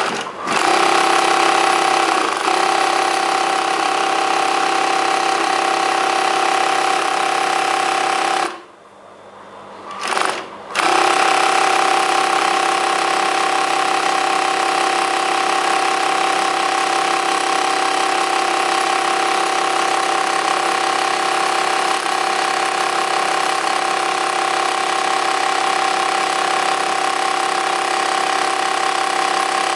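Typical TW3 industrial sewing machine running steadily at speed with a constant whine. It stops about eight and a half seconds in, gives one short burst about two seconds later, then runs on steadily again.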